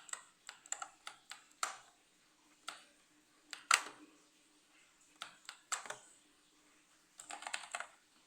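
Keys of a mechanical keyboard with clicky blue switches being pressed, in scattered single presses and short bursts, with a quick flurry of presses near the end.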